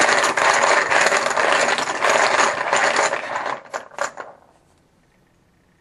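Poker chips clattering as a hand stirs through them in a bag: a dense run of clicking that ends with a couple of separate clicks about four seconds in.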